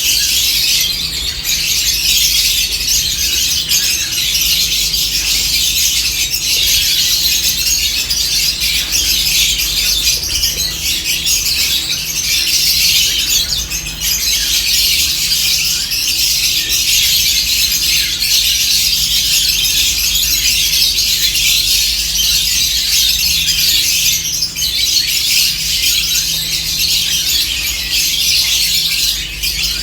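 A flock of lovebirds chattering nonstop, a dense high-pitched mass of chirps and squeaks. A faint steady low hum runs underneath.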